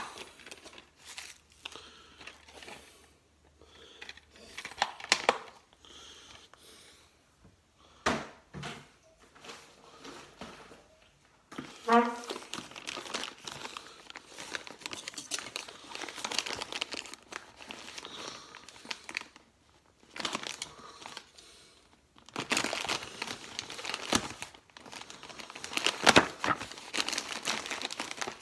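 Scattered clicks and knocks of a plastic DVD case being handled. Then, from a little before halfway, a plastic postal satchel crinkles and rustles as it is handled and torn open, most densely near the end.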